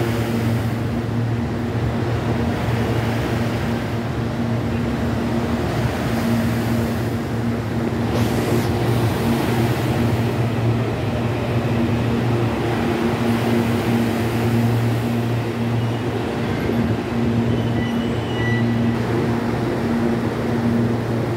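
Electric commuter train running along a station platform: a steady low electrical hum over the rolling rumble of the cars, with a brief hiss about eight seconds in.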